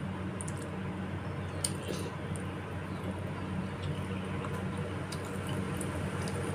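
Close-up wet chewing and squishing of bakso meatballs and spinach in broth, with a few faint clicks about two seconds in, over a steady low hum.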